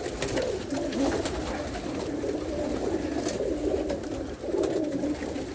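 Homing pigeons cooing together inside the loft: many overlapping low coos that rise and fall, with scattered faint clicks.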